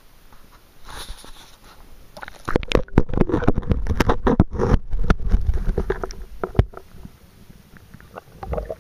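Water sloshing and a run of knocks and bumps as an underwater camera is dunked and moved about in shallow water, heard from inside the camera's housing. The knocking is densest from about two and a half to six and a half seconds in, then thins out to a few scattered bumps.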